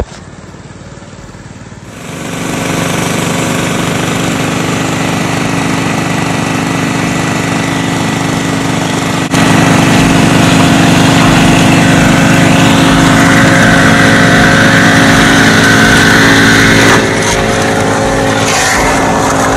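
Small gasoline engine of a gold suction dredge running steadily close by. It comes in about two seconds in and gets louder about nine seconds in.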